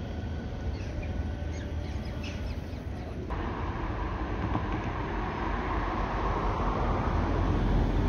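Outdoor background noise: a steady low rumble and hiss, like distant traffic, that changes suddenly about three seconds in and then grows slowly louder. A few faint high chirps sound in the first half.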